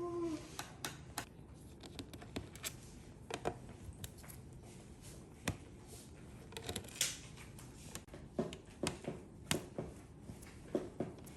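Hand tools working on a laptop's plastic casing: irregular light clicks, taps and scrapes, a few every second.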